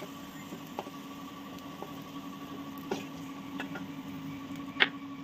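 Light, scattered clicks and taps of kitchen utensils being handled at the stove, about five in all, with one sharper knock near the end, over a steady low hum.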